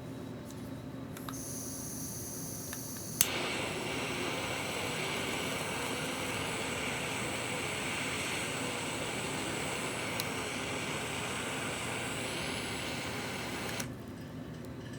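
A small electric blower switches on with a click about three seconds in, runs with a steady rushing noise and a high whine, then cuts off suddenly near the end.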